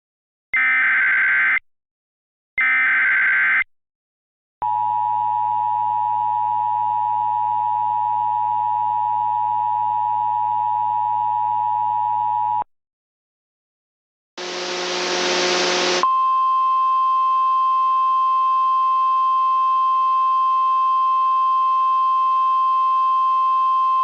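Emergency Alert System signals: two SAME header data bursts of about a second each, then the steady two-tone EAS attention signal for about eight seconds. After a short gap comes a brief burst of radio static, then a single steady warning alarm tone in the style of NOAA Weather Radio, held to the end.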